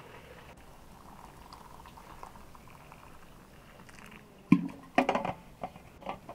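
Hot water poured from a metal thermos flask into a brass teapot, a faint steady trickle. From about four and a half seconds in come a run of loud clicks and knocks as the flask's stopper and cap are put back on.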